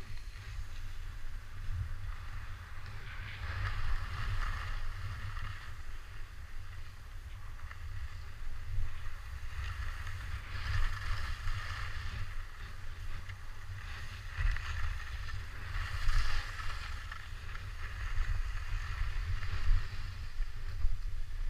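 Skis hissing and scraping over packed snow, swelling and fading every few seconds with the turns, over a steady low rumble of wind buffeting the camera microphone.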